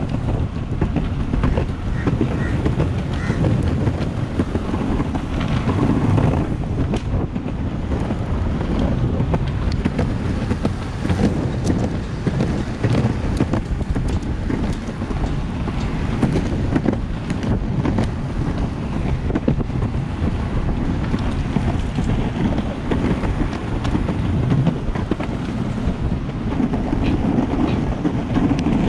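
Electric skateboard wheels rolling over a concrete path: a steady low rumble with many small ticks from cracks and grit, mixed with wind buffeting the microphone.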